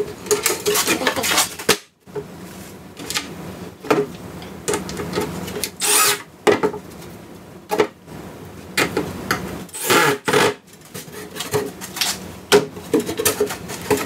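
Cordless drill driving short screws into a plywood panel in a few brief bursts, amid knocks and rubbing as the hinged plywood flap and hardware are handled.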